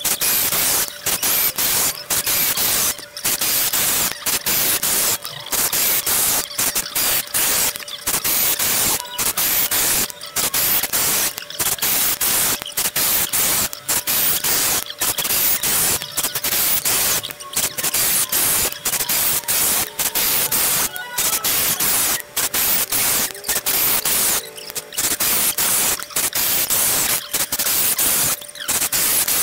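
Makita 6093D 9.6 V cordless drill driving and backing out a 2-inch screw in wood, its motor running as a harsh hiss-like noise with many brief breaks.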